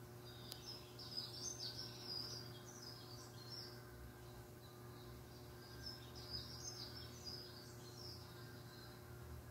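Small songbirds chirping and twittering, played back through a television's speakers: two spells of rapid high chirps, with a faint steady hum underneath.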